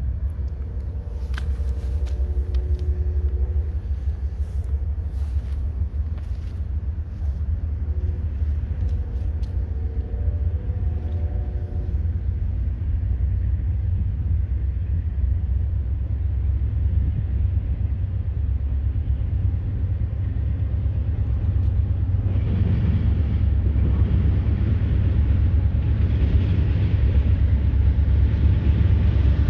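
Diesel freight locomotives approaching, a low rumble that grows louder and fuller from about two-thirds of the way through as they draw near under power. A distant multi-tone horn sounds twice in the first half.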